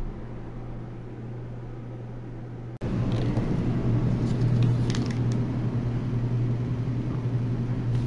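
Steady low hum with a rushing background noise, stepping louder at a sudden cut about three seconds in. A few light plastic clicks near the middle as a takeaway food tray is handled.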